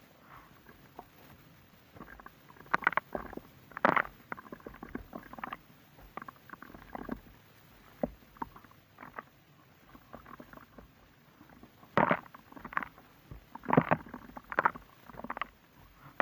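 Crumbly blocks of a gritty material, such as chalk or clay, being crushed and broken apart: irregular crunches and crackles, some single and some in quick clusters, with the loudest ones about 4 seconds in, around 12 seconds in and around 14 seconds in.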